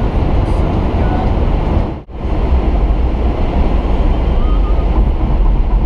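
Steady road and wind noise inside a car cabin at highway speed, mostly a low rumble with a hiss on top. It drops out sharply for an instant about two seconds in.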